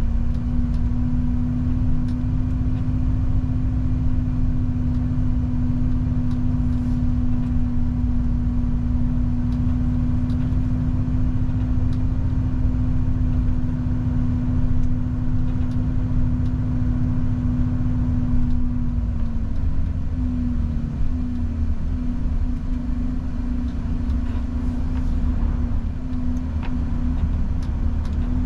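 Volvo FH truck driving at steady highway speed: a low, steady engine drone over road rumble. About two-thirds of the way through the drone begins to waver.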